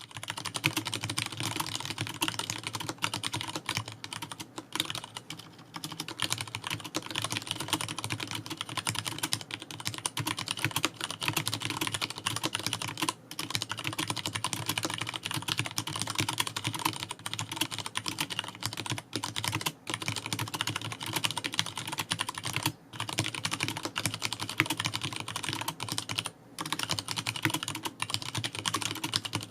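Continuous fast typing on a Leopold FC660M compact mechanical keyboard with Cherry MX Brown tactile switches: a dense stream of key strokes, broken by a few brief pauses.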